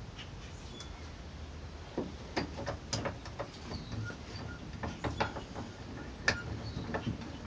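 Scattered light metal clicks and knocks from handling a newly mounted vise and its locks, starting about two seconds in, over a low steady hum.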